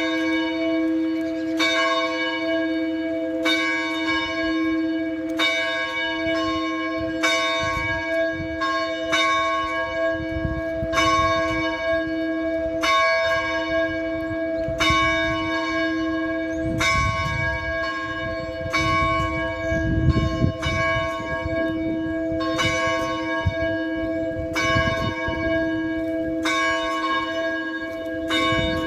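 A single church bell tolling, struck about once every two seconds, each stroke ringing on into the next.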